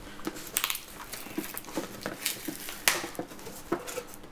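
Scissors cutting through packing tape on a cardboard box, with cardboard being handled: a handful of irregular sharp snips and scrapes, the loudest about three seconds in.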